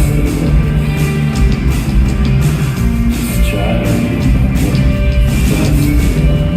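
Rock band playing live: a loud, dense stretch of guitars over bass and drums, with steady cymbal hits.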